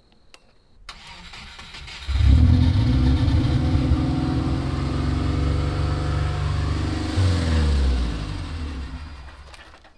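The Subaru Impreza GC8's flat-four engine is started, catches about two seconds in and runs, then drops in pitch and dies away about five seconds later. It is stalling soon after starting, which the owner puts down to the dash wiring not yet being hooked up.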